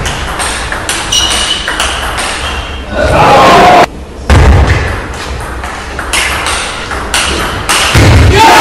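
Table tennis rally: the ball clicks back and forth off the bats and the table at a quick, even pace. Loud bursts of voices with heavy thuds break in about three seconds in and again near the end.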